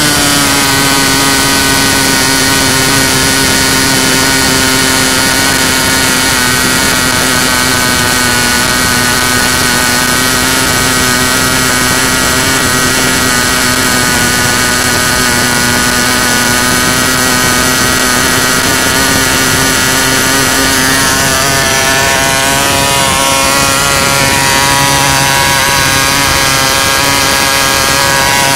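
1947 Foster .29 model aircraft engine, a rotary-valve two-stroke converted from spark to glow ignition, running at speed on a test stand with a 9x6 propeller, as a steady loud buzz. Its needle valve is being set during the run, and the speed dips slightly about twenty-one seconds in.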